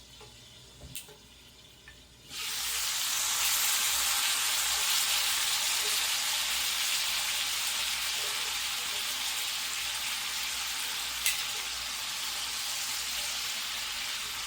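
Water poured into a hot electric baking pan of seasoned potatoes, sizzling and hissing as it hits the hot pan. The hiss starts suddenly about two seconds in and holds steady, with one brief click late on.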